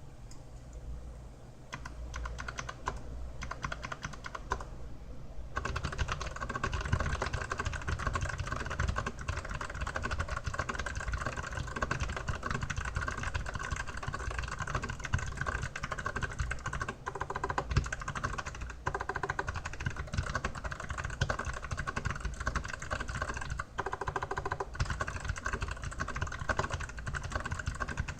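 Typing on an Archon AK87 mechanical keyboard with clicky Kailh Box White switches, fitted with a keyboard skin. A few scattered keystrokes at first, then fast, continuous typing from about five seconds in.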